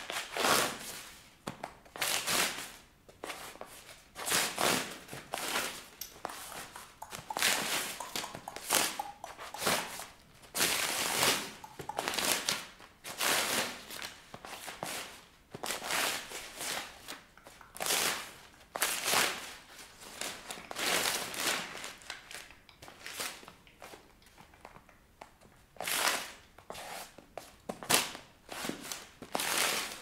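Sheets of notebook paper being torn and crumpled under high-heeled shoes, in repeated short bursts of ripping and rustling about once a second, with a brief lull about three-quarters of the way through.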